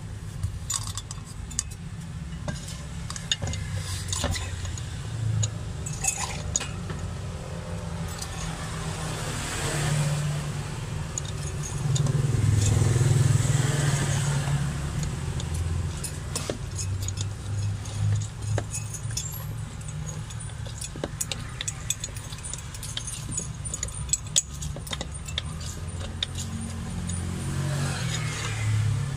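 Repeated metal clinks and clacks from a hand-lever lime press and steel utensils during lime tea preparation, over a steady low rumble of street traffic that swells louder about twelve seconds in.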